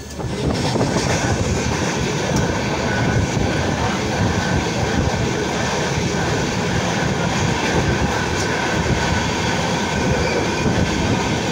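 Express passenger train running at speed, heard from the open coach door: a loud, steady rush and rumble of wheels on rail. It gets suddenly louder just after the start and stays level.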